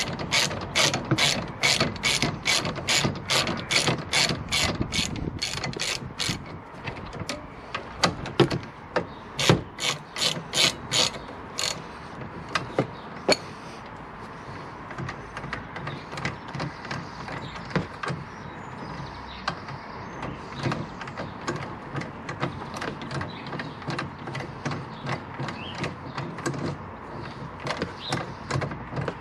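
Ratchet wrench with a 7 mm hex bit clicking as it winds out a rear brake caliper slide bolt. It clicks evenly, about three to four clicks a second, for roughly six seconds. The clicks then come slower and in short runs, and turn faint and scattered after about 13 seconds.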